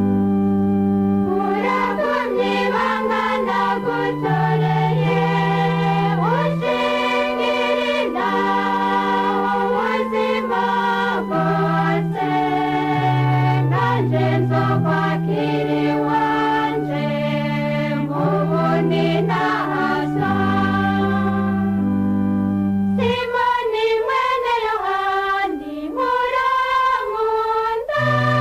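Church choir singing a hymn with several voices over steady held low notes; the low notes drop out for a few seconds near the end while the singing goes on.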